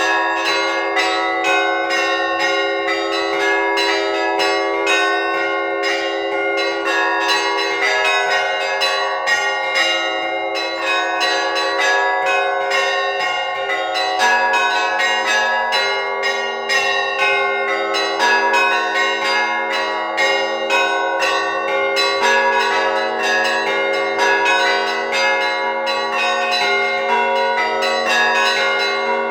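Festive Orthodox church bell peal rung before the Liturgy: small bells struck in quick, dense patterns over the lasting tones of larger bells, with a deeper bell coming in about halfway through.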